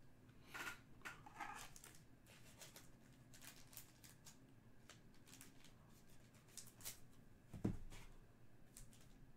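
Faint rustling and light clicks of trading cards being handled, with a single low thump near the end.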